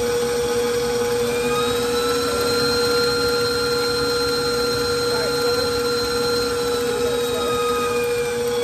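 KitchenAid Professional 5 stand mixer motor running steadily, beating eggs into creamed butter and sugar. A steady hum with a higher whine that comes in about two seconds in and fades away near the end.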